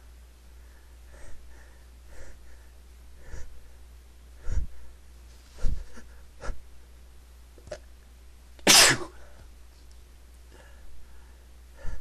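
A person sneezing once, loudly, a little under nine seconds in, after a run of short, quieter sounds building up to it.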